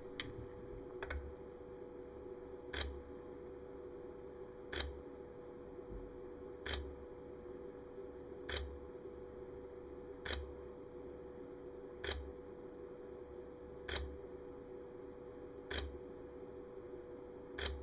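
Sony ILCE-7M5 mirrorless camera's shutter firing in electronic first curtain mode: single shots, one sharp click about every two seconds, about ten in all.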